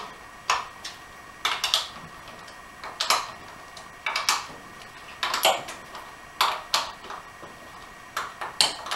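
Sharp metal clinks, one or two at a time about every second, from hand tools and bolts knocking on an AX5 transmission case as its cover bolts are worked by hand.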